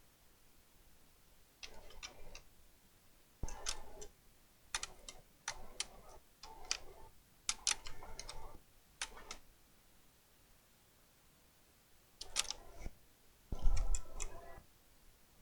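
Keys of a Fujitsu Siemens Amilo Li1818 laptop keyboard pressed in short irregular bursts of clicks, with pauses between, as the keyboard is tested after repair.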